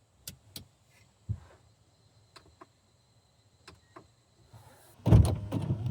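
A series of small clicks and knocks with one duller thump, then near the end a car engine starts suddenly and runs on with a steady low rumble.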